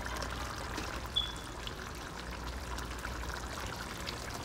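Pot of fish in sauce simmering on the stove: a steady, soft liquid hiss over a low hum, with a brief high tone about a second in.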